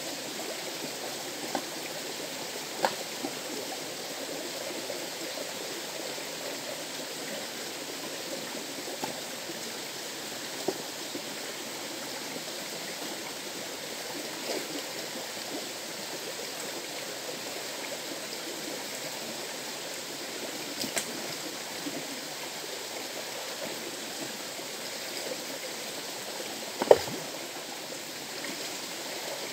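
River water flowing steadily, a continuous rush with a few scattered sharp knocks or splashes, the loudest near the end.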